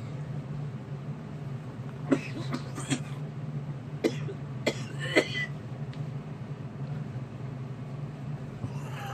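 A person coughing hard from vape-smoke irritation in the throat and lungs: six short, sharp coughs in two bursts of three, about two and four seconds in. A steady low hum runs underneath.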